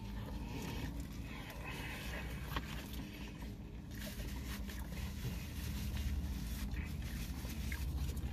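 A man chewing a mouthful of burger with his mouth closed: faint wet mouth noises and small ticks over a steady low hum in a car cabin.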